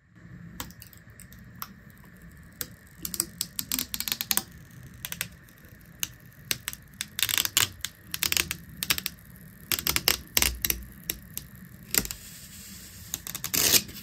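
Clear protective plastic film being peeled off the glossy front of an LED wall clock, crackling in quick, irregular clusters of sharp clicks.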